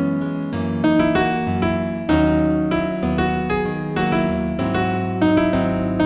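Solo piano music: a gentle New Age piece in B major at 120 beats a minute, with melody notes and chords struck about twice a second, each ringing on and fading.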